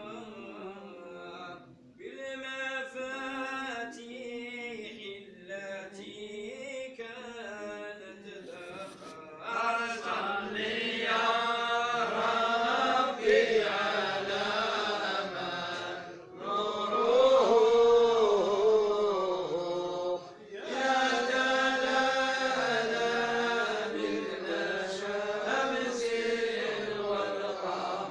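A man's voice chanting unaccompanied in a slow, ornamented melody, long held phrases broken by short pauses for breath; it grows louder about a third of the way in.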